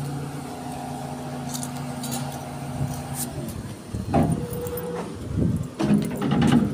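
Kato crane's hydraulic outrigger system running under the engine with a steady hum that stops a little over three seconds in. Then come irregular metallic rattles and clanks.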